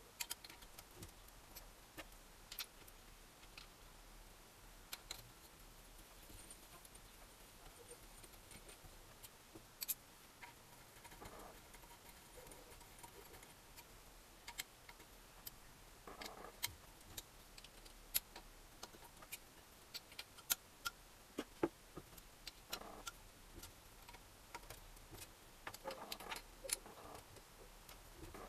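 Faint, scattered clicks and light metallic knocks of small engine parts and tools being handled against the cast-alloy crankcase during assembly, a little busier in the second half.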